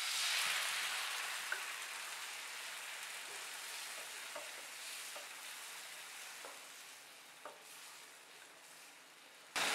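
A frying pan of drumstick pieces in hot mustard oil and spice paste sizzles as water is poured in and stirred with a wooden spatula. The sizzle is strongest at first and fades away over about seven seconds as the water cools the pan, with a few light clicks of the spatula.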